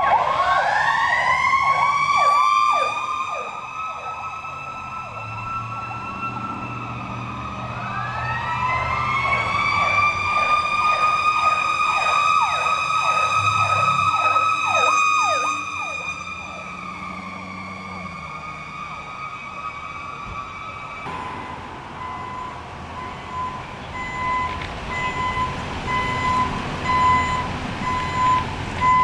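An emergency vehicle's siren winds up in pitch and then warbles with quick repeated dips, fades, and winds up again. It cuts off abruptly about two-thirds of the way through. It is followed by a steady beep that turns into a reversing beeper sounding about once a second.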